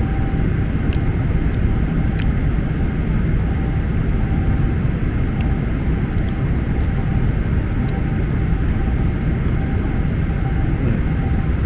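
Steady cabin noise of an airliner in flight: a deep, even rush of engine and airflow with a faint held tone. A few faint clicks are scattered through it.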